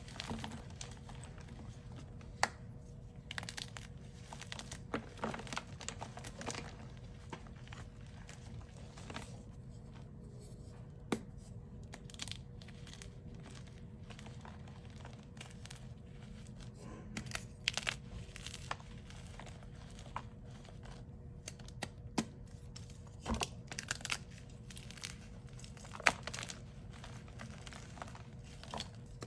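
Concrete being mixed by hand: irregular crunching and scraping with sharp clicks now and then, over a faint steady hum.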